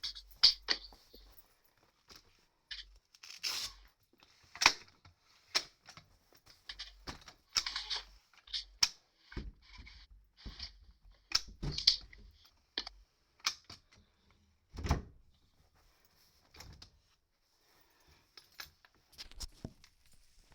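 Irregular knocks, clicks and clatters of handling and moving things about, coming in clusters, with a heavier thump about fifteen seconds in.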